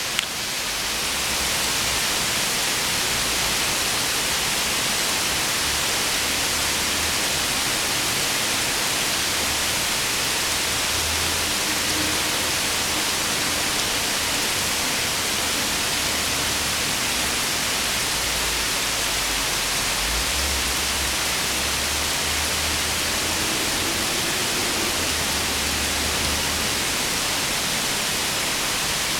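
Steady rain falling on trees and foliage: an even hiss, unchanging throughout.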